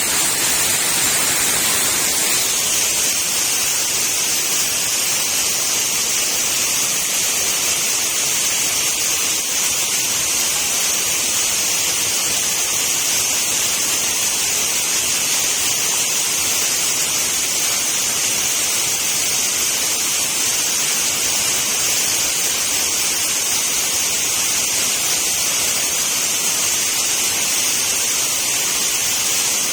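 Waterfall: a steady rush of falling water, an even high hiss that doesn't change.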